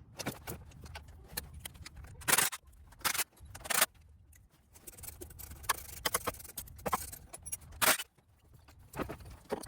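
Hand tools and metal parts clinking and scraping while the A/C compressor is unbolted from the engine, with several louder metallic clanks.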